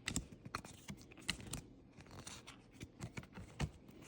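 Pokémon trading cards being handled and flipped through one by one, with soft light clicks and rustling of card stock.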